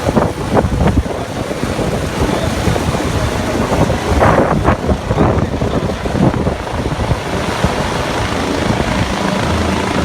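Airbus EC135 helicopter in flight, its rotor and turbines heard as a steady noise, with gusts of wind buffeting the microphone.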